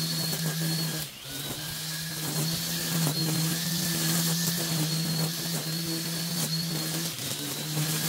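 String trimmer running steadily as its line cuts through long, wet grass. The motor eases off briefly about a second in, then picks up again.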